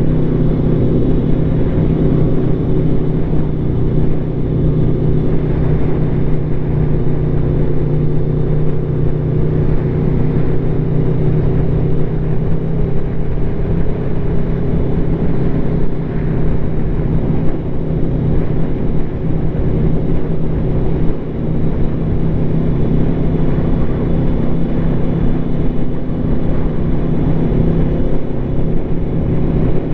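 Aprilia Tuono V4 engine with an SC Project SC1-R slip-on exhaust running at fairly steady revs while cruising, its pitch holding nearly level, with wind rushing over the microphone.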